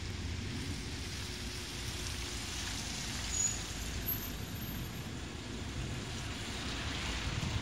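Cars passing on a wet road, their tyres hissing on the wet surface, the hiss swelling twice, against a steady low rumble of wind on the microphone.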